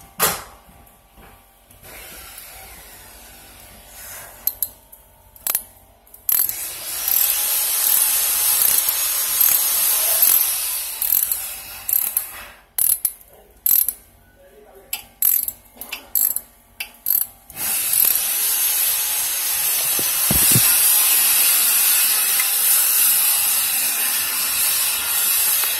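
Ratchet wrench clicking as it tightens the screw of a stainless band clamp on a rubber coupling that joins PVC pipe to cast iron. It comes in short runs of strokes, then a longer unbroken run of ratcheting from a little past the middle.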